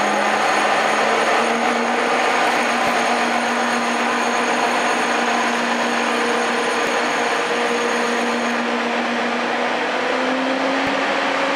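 TGV Réseau Duplex high-speed train moving slowly past at low speed, its power car giving a steady whirring of cooling fans with an electric whine on top. The whine steps up slightly in pitch about ten seconds in as the train gathers speed.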